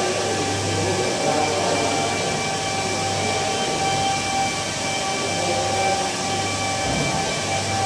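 Handheld electric car polishers running steadily with pads on a car's paint: a continuous motor whir with several steady tones and a low hum.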